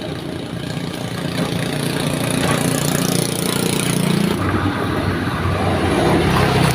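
An engine running steadily, its low pitch dropping about four seconds in, getting slightly louder toward the end.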